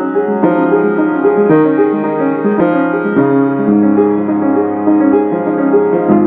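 Background piano music, slow, with new notes and chords coming in every half second to a second.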